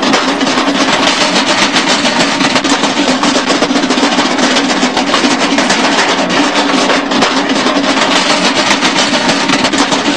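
Loud, continuous rapid drum roll, an unbroken stream of fast strokes that holds steady without a break.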